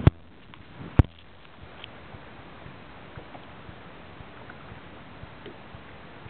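Steady hiss of sea water and wind around a kayak out on open water, with two sharp clicks about a second apart near the start.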